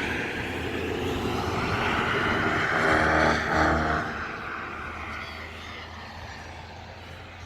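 A passing engine, growing louder to a peak about three seconds in and then fading away.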